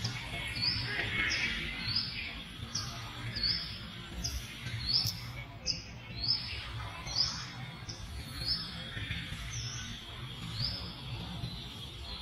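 A bird calling a short, high, rising chirp over and over, about one every two-thirds of a second, over a steady low rumble.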